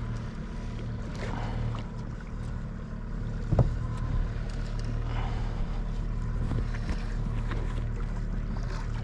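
A boat's motor humming steadily at a low pitch, with a single sharp knock about three and a half seconds in.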